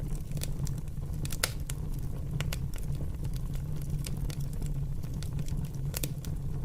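Fire crackling: irregular sharp pops and snaps, a few of them louder, over a steady low rumble.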